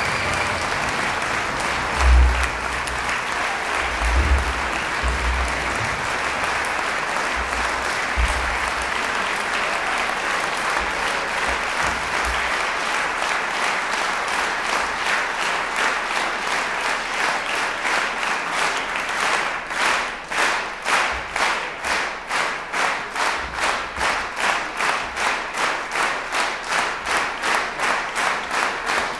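Concert hall audience applauding, with a few low thumps in the first several seconds. About two-thirds of the way in, the clapping falls into steady rhythmic unison clapping, about two claps a second.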